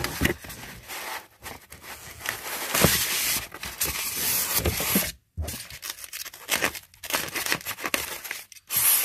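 Styrofoam packing blocks scraping and rubbing against cardboard as they are slid out of a product box and pulled apart, with plastic bubble wrap crinkling. The scrapes come in irregular bursts, with a longer, denser stretch about three seconds in and a short pause about five seconds in.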